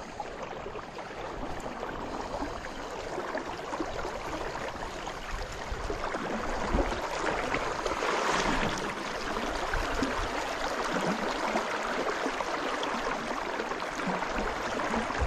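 Stream water rushing steadily, a little louder in the second half.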